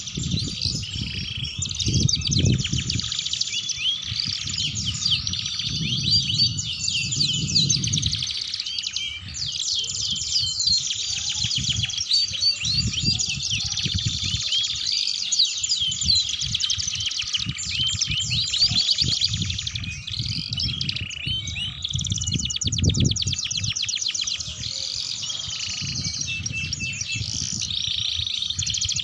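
Domestic canary singing a long, unbroken song of fast trills and rolling warbled runs, with a low rumble coming and going underneath.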